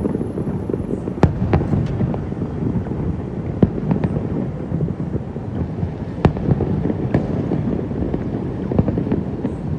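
Fireworks display: a continuous low rumble of bursts, with sharper single bangs standing out every second or few.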